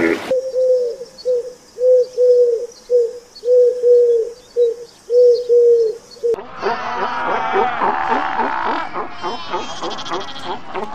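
A bird's soft hooting calls repeated about twice a second, a dozen short notes on one low pitch. About six seconds in they give way to a loud, dense chorus of many animals calling over one another, like a colony of sea lions barking.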